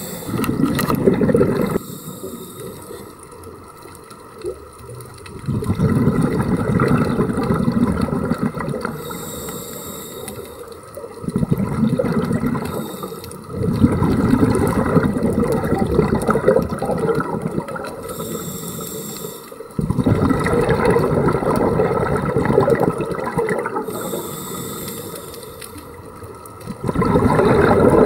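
Scuba diver breathing through a regulator: a short hiss on each inhale, then a long, loud gurgle of exhaled bubbles, about three breaths.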